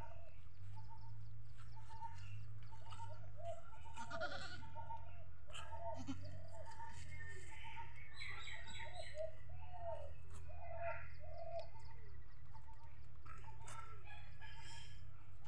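Nanny goat making short, soft calls about twice a second to her newborn kid, the low maternal calls a doe makes while licking a just-born kid.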